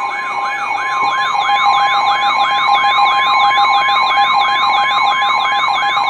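Weather radio alert alarm: a steady high tone under a siren-like warble that sweeps up and down about three times a second, the sign that a new severe thunderstorm warning is about to be read.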